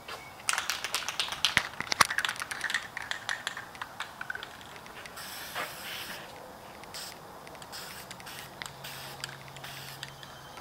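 Aerosol spray-paint can being shaken, its mixing ball rattling in quick irregular clicks for the first few seconds. Then short hisses of paint spraying from the nozzle, with more scattered rattles.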